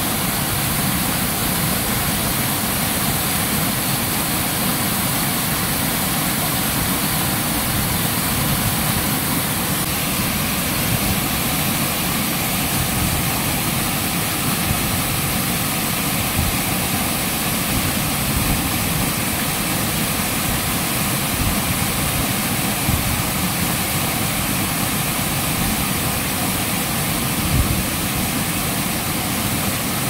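Waterfall pouring into a plunge pool close by: a loud, steady rush of falling water that does not change.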